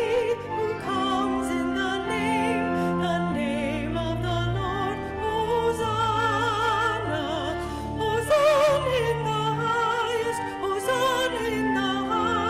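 A woman singing solo in a classical, operatic style with a wide vibrato, over an accompaniment that holds low sustained notes, changing every second or two.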